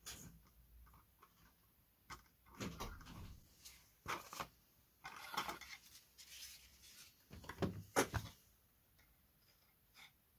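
Faint handling noises of light tissue-covered balsa model parts being picked up and moved about: soft rustles with scattered small clicks and taps, the sharpest about eight seconds in.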